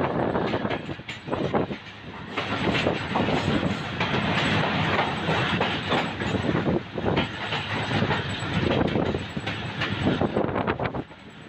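Passenger train coaches rolling along the track, wheels clattering irregularly over rail joints and points, heard from an open coach doorway with a steady rushing noise.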